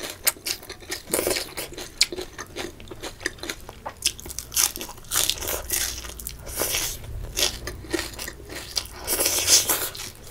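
Close-miked chewing and crunching of a mouthful of raw dill sprigs: an irregular run of crisp crunches and wet mouth clicks.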